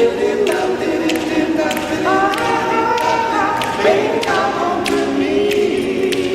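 A cappella vocal group singing held chords in close harmony, with no instruments. Sharp percussive ticks recur about every half second, keeping the beat.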